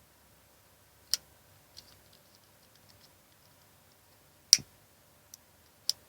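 Lighter clicking: three sharp clicks about a second, four and a half seconds and six seconds in, the middle one the loudest, with a run of faint small ticks after the first.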